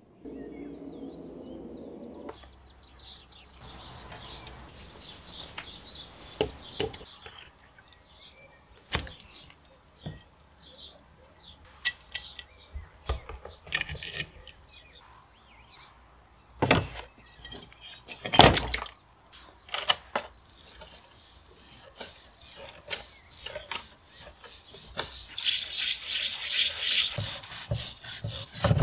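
Electrolysis bath fizzing briefly, then a metal scraper knocking and scraping loosened rust scale off a corroded iron axe head in the tank. Near the end comes fast, steady scrubbing of the wet axe head with an abrasive pad.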